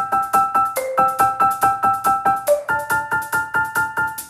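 Background music on a keyboard, with quick evenly repeated chords at about six a second that shift chord every second or two.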